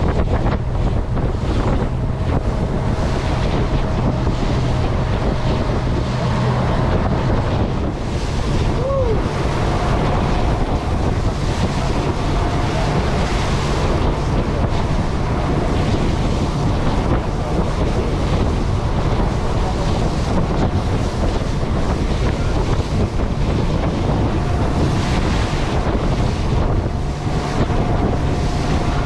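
Heavy wind buffeting the microphone aboard a Buster Magnum motorboat running through rough chop, with waves splashing against the hull and a steady outboard motor hum underneath.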